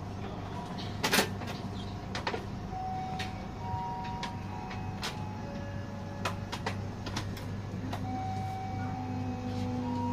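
Inside a passenger train carriage: a steady low rumble of the running train, with scattered sharp clicks and rattles and a few short whining tones.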